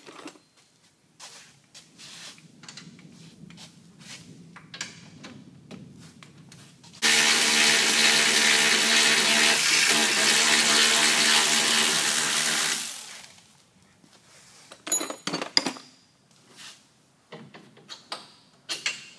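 Power ratchet running steadily for about six seconds, spinning out a lower A-arm bolt on a UTV's front suspension. Light metallic clicks and clanks from handling tools and parts come before and after it.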